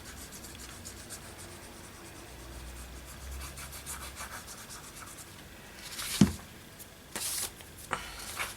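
Paper being handled and rubbed flat on a table, hands smoothing pages down with a light scratchy rubbing. A sharp knock about six seconds in, then a short swish of paper and a couple of light taps.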